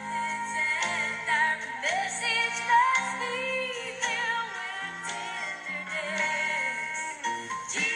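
Southern gospel song playing, with singing over a band and a steady bass line.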